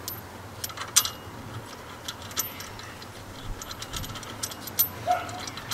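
Irregular light metallic clicks and taps as the 1KZ-TE's camshaft timing pulley is seated and its nut is threaded on by hand. The sharpest clicks come just after the start and about a second in.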